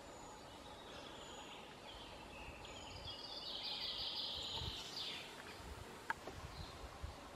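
Woodland ambience: faint bird calls over a steady hiss, with a brighter stretch of high birdsong in the middle and a single sharp click about six seconds in.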